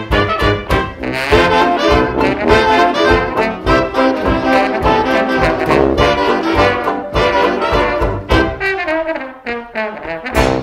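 Instrumental passage of a 1920s-style hot jazz dance band, brass to the fore over a steady rhythm-section beat. The band thins out briefly with a falling phrase near the end.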